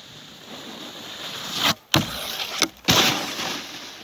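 Snowboard sliding over packed snow, its scrape growing louder as the rider comes close, with sharp hits about two and three seconds in as the board strikes a box feature and comes down on the snow.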